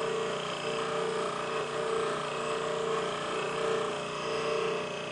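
Bench buffing wheel running while a metal part is pressed against the cloth wheel and polished. A steady whir with a hum that swells and dips a little more than once a second.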